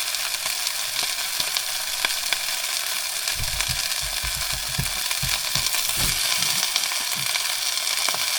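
Burgers and halved sausages sizzling steadily in a frying pan on a portable gas camping stove, with a few low thuds in the middle as the pan is handled.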